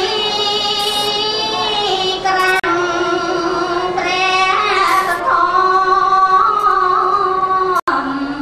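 A woman singing solo into a microphone, a slow melody of long held notes that slide from pitch to pitch, with a short break for breath about two and a half seconds in and another near the end.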